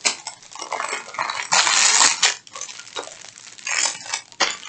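Small plastic bags of diamond painting drills being handled: crinkling plastic and the rattle and clink of the tiny drills inside, with the loudest crinkle about two seconds in.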